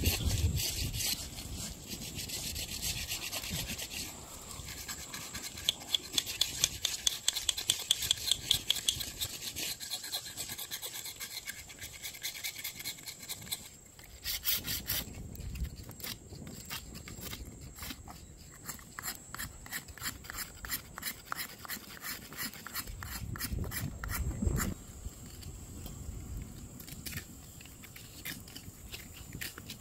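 Repeated scraping and rubbing strokes, with a run of sharp, evenly spaced strokes between about six and nine seconds in.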